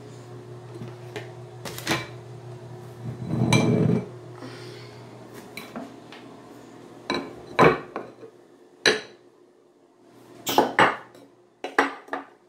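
Plastic tubs and other objects being handled and set down on a bathroom counter: a series of sharp clacks, the loudest in a cluster near the end, with a second-long rustling burst about three seconds in. A steady low hum underneath drops away partway through.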